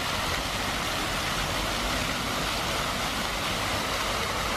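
Fountain jets splashing: a steady rush of falling water.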